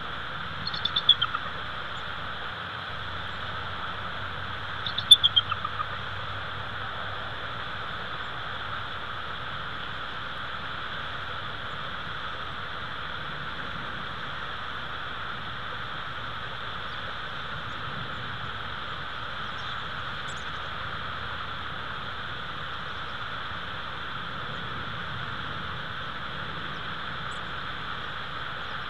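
Bald eagle giving two short runs of high, quick, descending chittering notes, about a second in and again about five seconds in, over a steady hiss.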